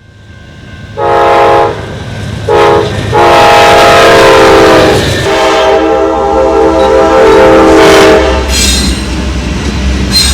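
Diesel locomotive's multi-note air horn sounding four blasts, two short and then two long, over the low rumble of the passing train, which grows near the end.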